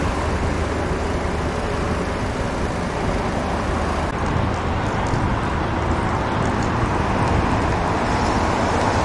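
High-reach demolition excavator's diesel engine running steadily, a continuous low drone with no distinct crashes.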